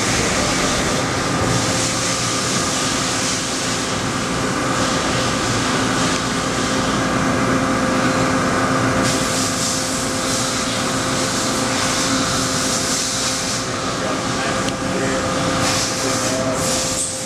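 Kitamura Mycenter 3X CNC vertical machining center running a drilling cycle, its spindle turning a small drill into a part. A steady mechanical hum with a few held tones sits under a loud hiss that swells and eases every several seconds.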